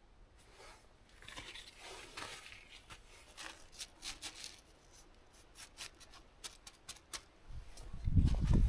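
Rustling and handling sounds with scattered small clicks and scrapes. About seven and a half seconds in, a much louder low rumbling starts.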